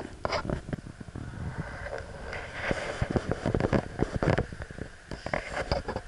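Handling noise from a handheld camera being carried: many irregular knocks and clicks over a constant low rumble.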